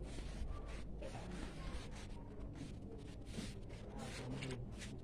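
Rustling and rubbing handling noise, with faint indistinct voices in the background.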